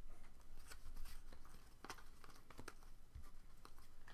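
Faint clicks and rustles of trading cards being handled and flipped through, one card sliding off another at a time.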